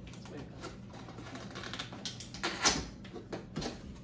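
Cardboard box being opened and its packaging handled: a run of small clicks and rustles, with a louder knock a little after two and a half seconds and another near three and a half.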